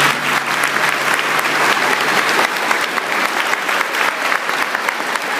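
Audience applauding: a dense, steady clapping from a hall full of people at the end of a sung folk song.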